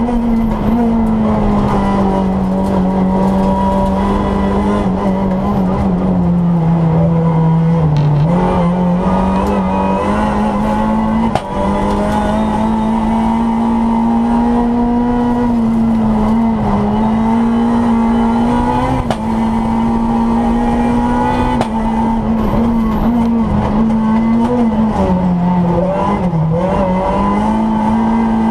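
Renault Clio R3 rally car's 2.0-litre four-cylinder engine running hard at high revs, heard from inside the stripped cabin. Its pitch stays high, dropping and recovering several times, most deeply about eight seconds in, as the car is driven around the circuit.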